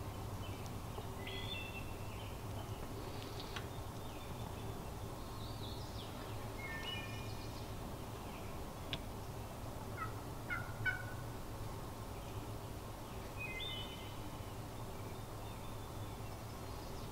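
Wild turkey hen calling faintly in short clusters of brief notes, three times, with a few sharp rising chirps about ten seconds in.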